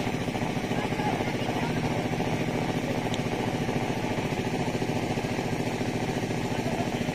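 An engine running steadily at a constant idle speed, an even, unbroken hum.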